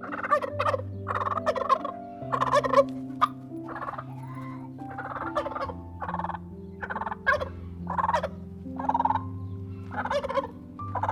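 Domestic fowl calling over and over, about one short, rough call a second.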